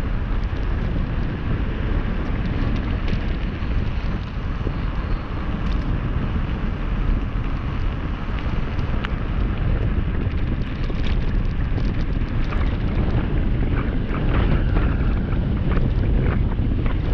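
Wind rushing on the microphone during a fast descent at about 30 km/h, over the crunch of bike tyres on a loose gravel track. Scattered sharp clicks and rattles of stones and the bike come thicker near the end.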